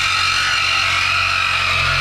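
Cordless reciprocating saw running steadily as it cuts through the car's metal exhaust pipe to remove the mid muffler.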